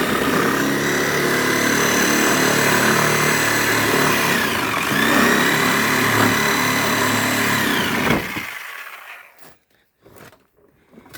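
Electric saw running as it cuts through the plastic body of a Power Wheels ride-on toy. Its motor whine sags in pitch under load about halfway through and picks back up, then the saw stops a little after eight seconds and winds down.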